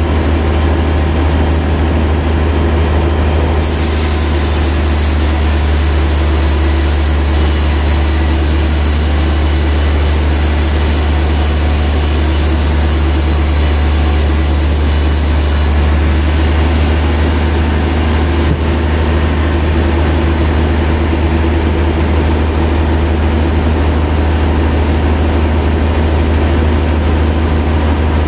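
Large vertical band sawmill running with a steady low hum. From about four seconds in until about sixteen seconds in a high hiss joins it as the blade cuts through a trembesi (rain tree) log.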